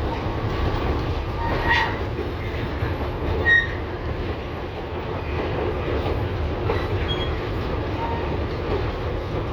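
LVS-2009 tram running along the track: a steady rumble of wheels on rails, broken by two brief sharp squeaks, one about two seconds in and a louder one about three and a half seconds in.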